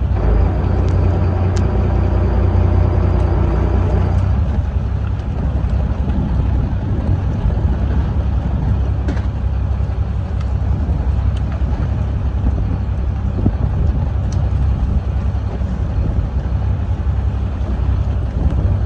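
Steady low rumble of wind buffeting the microphone and a fishing boat's engine running at sea, with a fainter hum over the first four seconds.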